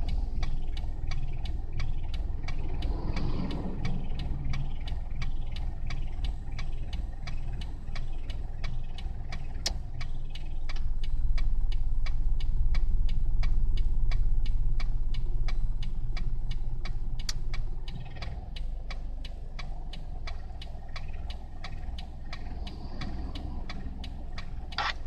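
Toyota Passo's 1.3-litre four-cylinder K3-VE engine idling in Drive, with a rapid, even ticking over its hum. The uploader suspects the tick is an exhaust leak from a deteriorated gasket at the joint between the exhaust manifold and the exhaust pipe. The hum grows louder about ten seconds in and drops back a few seconds later.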